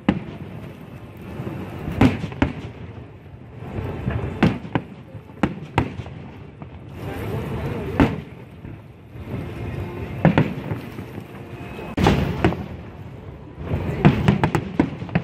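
Aerial firework shells bursting overhead in a rapid series of sharp booms, one every second or two and sometimes two in quick succession, each trailing off in a rumbling echo.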